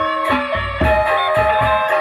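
Sasak gendang beleq gamelan ensemble playing a gending: ringing bronze metallophone and kettle-gong notes held and changing over low strokes of the big gendang beleq drums.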